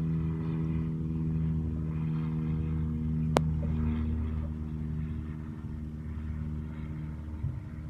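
Steady low hum of a car engine running, with a single sharp click about three and a half seconds in.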